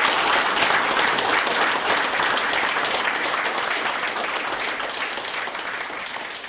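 Audience applauding after a poetry reading, the dense clapping gradually fading out.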